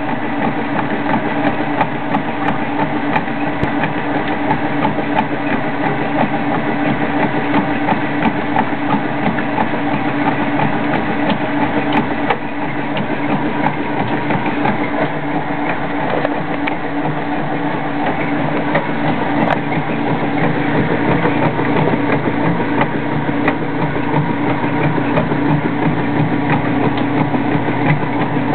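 2001 Kenmore washing machine running, a steady mechanical hum with a low drone that holds even throughout.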